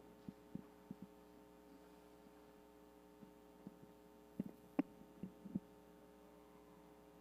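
Faint steady hum with a scattering of soft knocks and thumps: a few in the first second, then a tighter cluster about four and a half to five and a half seconds in, the loudest near the middle of that cluster.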